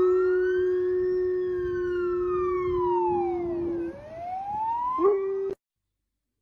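Police siren wailing up and down while a Doberman howls along with one long held note. The howl breaks off just before four seconds in and starts again about a second later. Both sounds cut off abruptly about five and a half seconds in.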